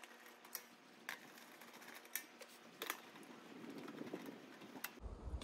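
A few light, separate metal clicks and taps, about a second apart, from a hand tool working the screws out of a metal chimney cap.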